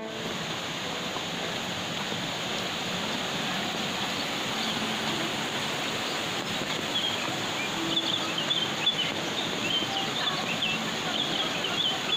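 Steady rush of falling water. From about seven seconds in, small birds chirp in quick, high twitters over it.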